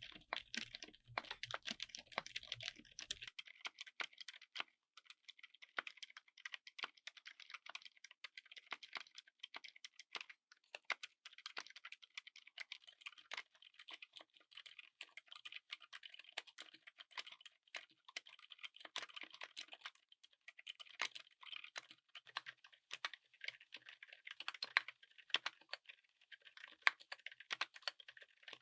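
Continuous fast typing on a mechanical keyboard fitted with silent (dampened) switches: a dense, irregular stream of soft keystroke clicks.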